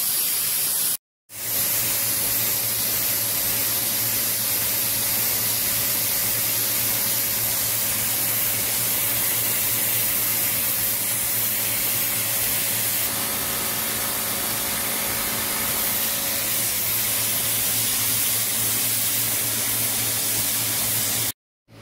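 Spray rig applying Andek Cocoon 111 coating: a steady, even hiss of spray over a low, constant machine hum, broken by a brief silent gap about a second in.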